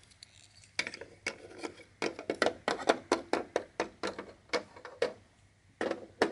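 Lego Duplo figures handled against their plastic toy beds and Duplo bricks: a run of quick, irregular plastic clicks and taps, several a second.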